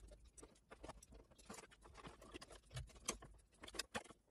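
Very faint, scattered small clicks and rustles of wires and crimp terminals being handled and pushed onto a circuit board.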